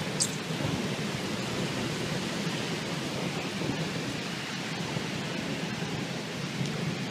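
Heavy thunderstorm rain falling steadily, an even, dense hiss. A brief high chirp sounds about a quarter second in.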